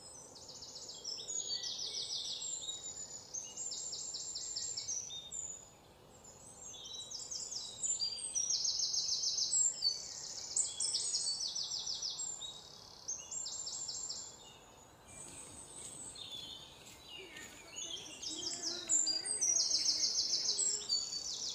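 Songbirds singing: high, rapid trilled phrases repeated over and over with short gaps, several overlapping.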